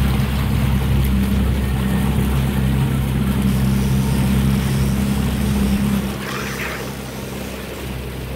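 Suzuki outboard motor running steadily as the boat moves, with the wash of the wake over it. About six seconds in, the engine's low hum drops away and the sound gets quieter.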